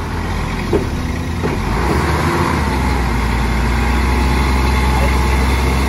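Heavy diesel engine running steadily, growing louder and deeper about two seconds in as it works under a load that is described as really heavy.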